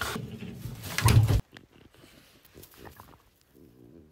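French bulldog snorting and grunting, loudest about a second in, then cut off sharply. After that come fainter short snorts and the scrape of its paws digging in sand and gravel.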